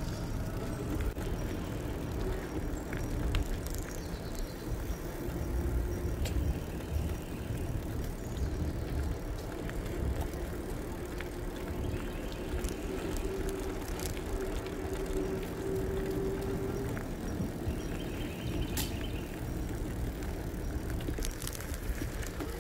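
An e-bike being ridden: wind rumbling on the microphone and tyre noise, with a faint steady whine from the electric motor through the middle stretch and a few light clicks.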